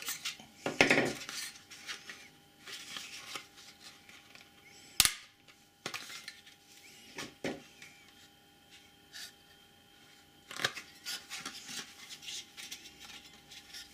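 Plastic snap-fit clips on a BMW GM5 body control module's housing being prised and worked loose: scraping of plastic with scattered sharp clicks as the stiff clips give, the sharpest about five seconds in.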